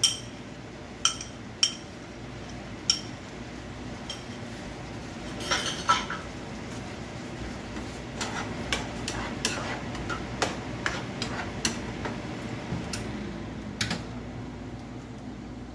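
A bowl knocked against a frying pan as sauce is emptied into it, with four sharp ringing clinks in the first three seconds, then a spoon stirring the sauce in the pan with many scattered light knocks.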